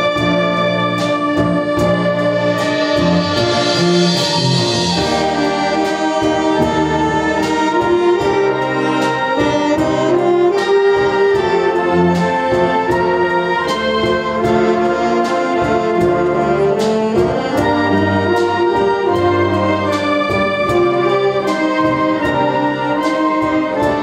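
A full concert wind band playing live: brass and woodwinds hold chords over evenly repeated drum strokes, with a cymbal swell about three seconds in.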